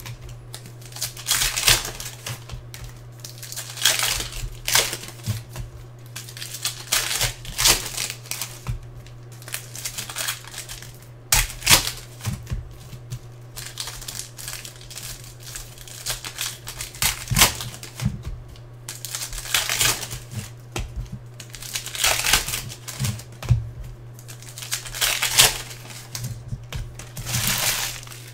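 Foil trading-card pack wrappers crinkling and tearing open, with cards rustling in the hands, coming in irregular spells over a steady low hum.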